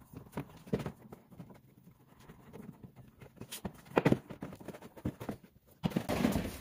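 Plastic rear wheel well liner of a Tesla Model S being flexed and worked out of the wheel arch: irregular plastic clicks and knocks, one sharp knock about four seconds in, then a short scraping rustle near the end.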